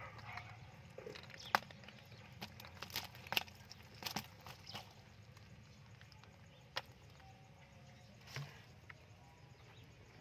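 Scattered sharp clicks and knocks, most of them in the first half, over a low steady hum.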